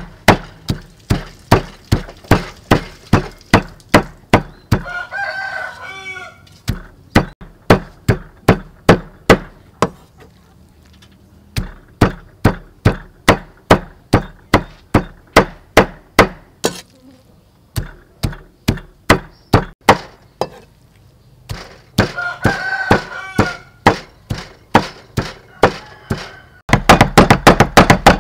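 Knife chopping raw pork on a wooden chopping block, steady strokes about two or three a second with a couple of pauses. A rooster crows twice in the background. Near the end the chopping turns faster and louder as the pork is minced.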